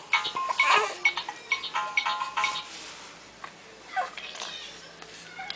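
Electronic jingle from a baby's musical play-gym toy: a quick run of short beeping notes that stops about two and a half seconds in, followed by a brief coo from the baby about four seconds in.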